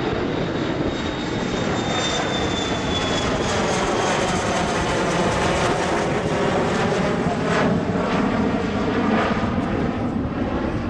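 Embraer ERJ-145LR regional jet at takeoff power, its twin Rolls-Royce AE 3007 turbofans giving a loud steady rush as it passes, with a high fan whine that falls in pitch during the first few seconds.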